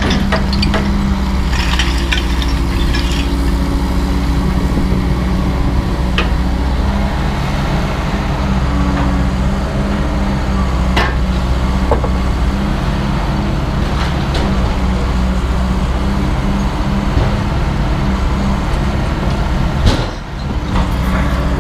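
An engine running steadily at a low drone, with a few light clinks and knocks over it and a short dip near the end.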